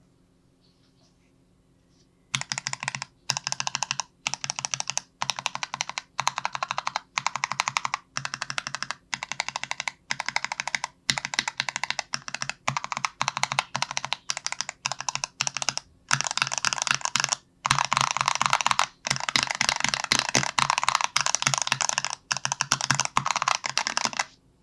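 Keys of an unmodded YMDK 3x3 macropad with Gateron Ink Box V2 and NovelKeys Cream Box linear switches and clear ABS keycaps, typed in rapid bursts of clacks with short pauses between and longer runs near the end. This is the stock sound, before any foam or tape mod, which the typist calls a bit stocky.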